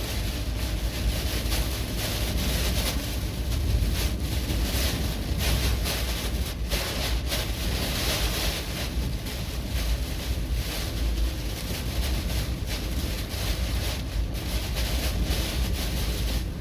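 Strong, gusty wind from an approaching typhoon buffeting the microphone, a loud rumbling rush that swells and eases without a break.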